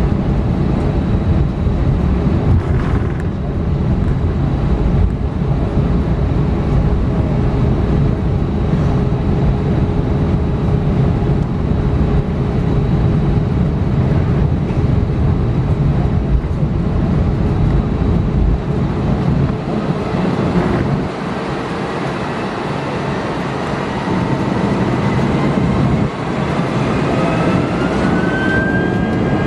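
Airbus A319 takeoff heard from the cabin: jet engines at takeoff power over a heavy runway rumble that falls away about twenty seconds in as the wheels leave the ground. Near the end, several tones climb steadily in pitch.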